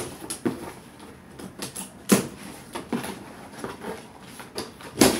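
Scissors and hands working at the tape and flaps of a cardboard shipping box to open it: irregular sharp clicks and scrapes, the loudest about two seconds in and just before the end.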